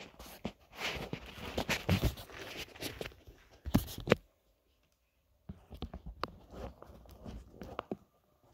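Handling noise of a phone being moved about close to its microphone: rubbing, scuffing and clicks in two spells, with a pause of about a second in the middle.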